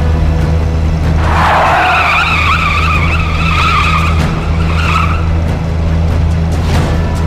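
Car tyres squealing for about four seconds, beginning about a second in, over the steady low drone of the car's engine.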